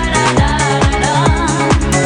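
Background electronic dance music with a steady kick-drum beat and synth melody.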